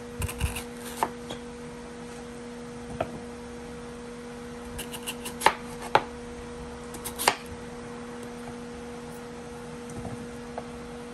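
Santoku knife slicing through a peeled daikon radish and knocking on a plastic cutting board: a handful of sharp, irregularly spaced cuts, mostly in the first seven or so seconds.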